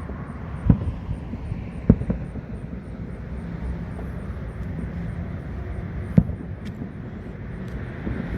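Fireworks going off at a distance: three loud bangs and a few fainter pops over a steady low rumble.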